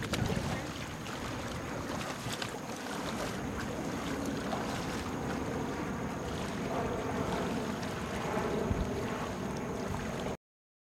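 Wind rumbling on the microphone over small waves lapping in shallow water. The sound cuts off suddenly near the end.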